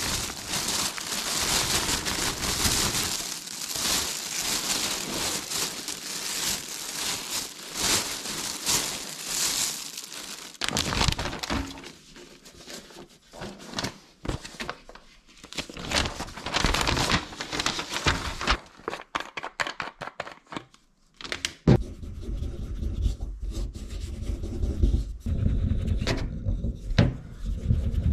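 Thin plastic shopping bag rustling and crinkling steadily as hands rummage in it, for about the first ten seconds. Then paper is handled: scattered rustles and sharp knocks, and in the last few seconds low rumbling handling noise with more knocks.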